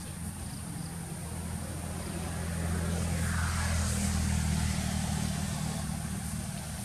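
A motor engine hums steadily in the background, swelling louder in the middle and easing off toward the end.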